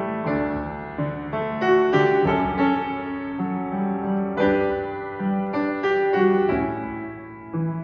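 Upright piano playing a slow hymn tune in chords, each note struck and left to ring.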